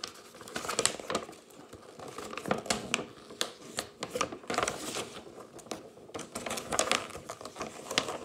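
A folded paper poster being unfolded and handled, its paper rustling and crinkling in irregular bursts.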